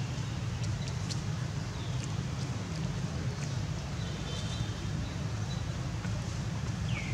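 Outdoor background: a steady low rumble with a few faint high chirps, one falling in pitch near the end, and scattered light clicks.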